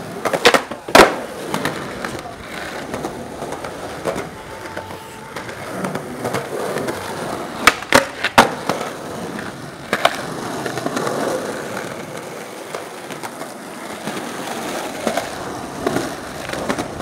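Skateboard wheels rolling on pavement, with sharp clacks of the board striking the ground: a pair near the start, three close together around eight seconds in, and one more at about ten seconds.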